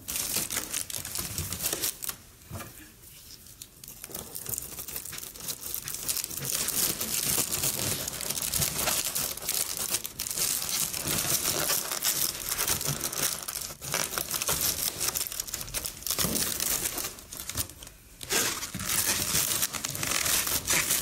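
A foil balloon crinkling and rustling as hands work it onto a stem of twisted latex balloons. The crinkling eases off for a moment a couple of seconds in and again near the end.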